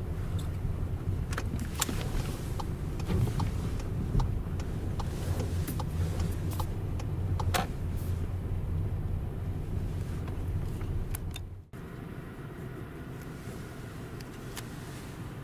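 Car road noise heard from inside the cabin while driving: a steady low rumble of engine and tyres with scattered sharp clicks and ticks. About twelve seconds in it breaks off abruptly and goes on as a quieter rumble.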